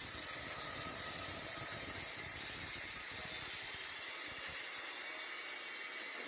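Heavy rain and gale-force wind in a steady hiss, with wind rumbling on the microphone that drops away about four and a half seconds in.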